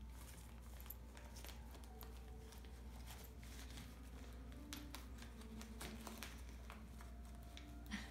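Faint, scattered crinkling and ticking of wrapping paper as a Welsh Terrier puppy chews and tugs at a wrapped present.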